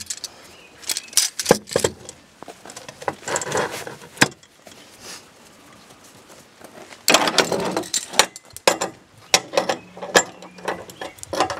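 Metal clinks and rattles of ratchet tie-down strap hooks and fittings being clipped into a steel anchor track on a trailer floor. The clicks come in scattered bunches at first and turn into a dense run of rattling about seven seconds in.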